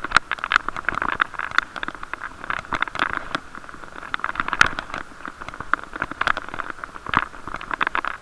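Wind and riding noise heard through an action camera's waterproof case on a moving bicycle: a muffled, boxy rush with frequent small knocks and rattles.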